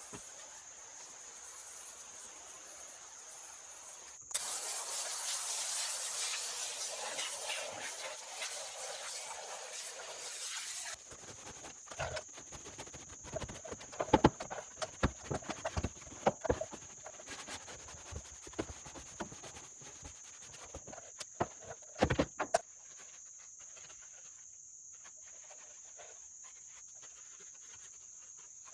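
Crickets trilling steadily. About four seconds in, a spray hisses for some six seconds and drowns them out. Then comes about ten seconds of irregular scrubbing and knocking of cleaning work on a wheel, and after that only the crickets.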